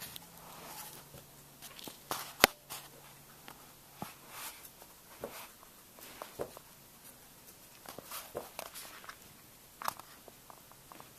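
An orange tabby cat and a Bouvier des Flandres play-wrestling on a rug: irregular scuffling, rustling of fur and paws and soft mouthing sounds, with one sharp click about two and a half seconds in.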